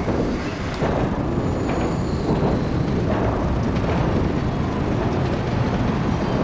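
Steady rumble of trains and road traffic crossing a steel bridge.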